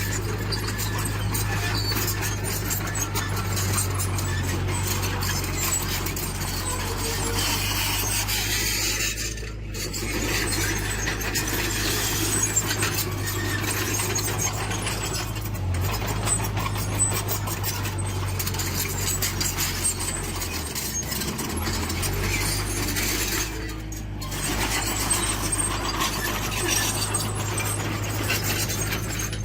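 Heavy tracked earthmoving machine with its diesel engine running steadily, over the squealing and clattering of its steel tracks.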